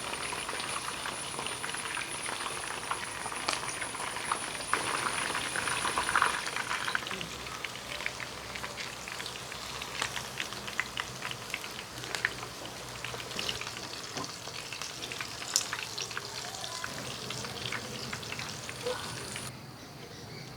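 Soya chicken pieces frying in hot oil: a steady crackling sizzle with many sharp pops, louder in the first several seconds. It drops away abruptly near the end.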